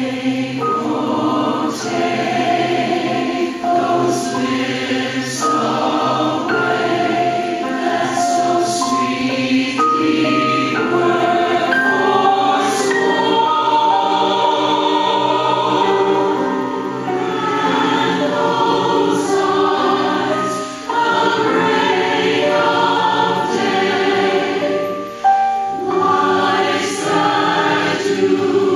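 Mixed-voice choir singing a madrigal in parts, held chords moving from note to note, with brief pauses between phrases.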